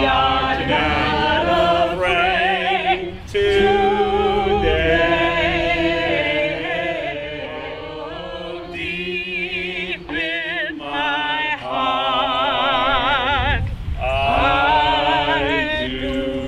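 Singing: phrases of long held notes with a strong vibrato, broken by short breaths.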